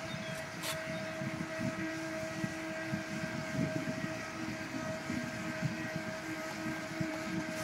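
Brushless-motor RC jet boat running at steady throttle while towing a capsized RC boat: a thin, constant whine from its motor and water-jet drive. Wind rumbles on the microphone underneath.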